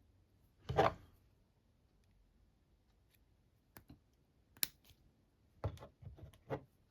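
Metal clicks and brief rattles from a 7-lever SMP safe lock and its pin-and-cam decoding tool being worked by hand. A louder rattling scrape comes about a second in, then a few sharp single clicks, and a quick cluster of clicks near the end.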